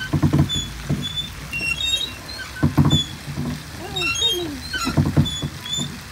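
Pedal boat being pedalled on a pond: repeated low knocks and sloshing from the paddle mechanism, with short high squeaks throughout.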